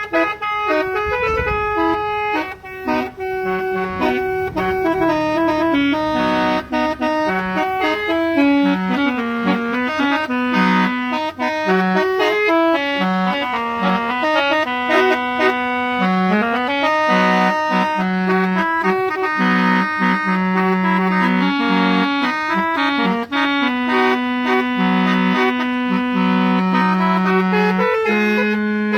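Telolet multi-tone musical horn playing a melody: held notes that step up and down in pitch, one after another, without a break.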